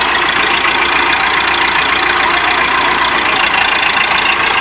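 Massey Ferguson 50C backhoe's engine running steadily at raised throttle.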